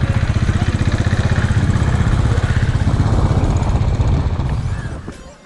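Motorcycle engine running while the bike is ridden along the road, a rapid, even pulse of the engine's firing over wind and road noise. It fades out near the end.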